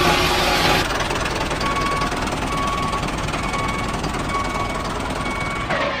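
Steady mechanical rattle of a tractor engine sound as the toy tractor hauls its brick-laden trolley, with a short faint high tone repeating about once a second.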